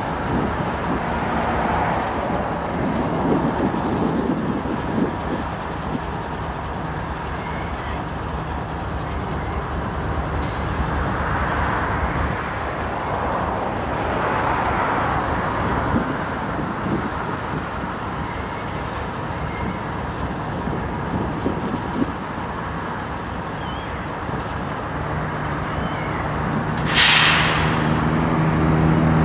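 Union Pacific diesel-electric freight locomotives running as the train moves off, a steady engine rumble with wheel and rail noise. About 27 seconds in, a short burst of air hiss lasts about a second, and the engine note grows stronger near the end as a locomotive comes close.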